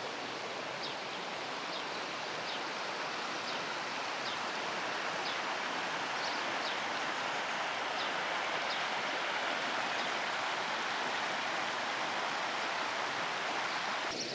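River water flowing with a steady rushing murmur, with small birds giving short high chirps now and then.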